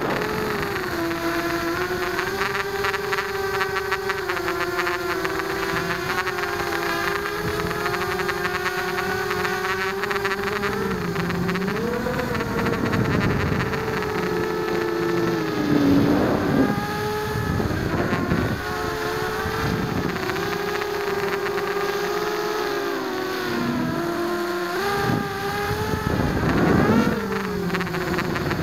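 Blade 200 QX quadcopter's four brushless electric motors and propellers whining in flight, heard close up from the camera mounted on it. The pitch holds fairly steady, then swings down and up with throttle changes, loudest in surges about halfway through and near the end.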